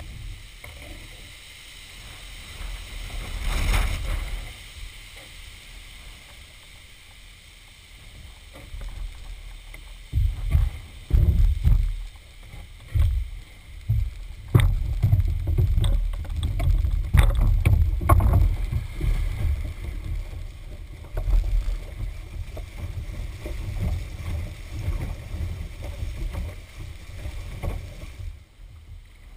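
Wind buffeting a camera microphone on the bow of a canoe in floodwater, rumbling in gusts that grow stronger after about ten seconds. Water sloshes and splashes around the hull, with a few sharp knocks on the canoe in the middle.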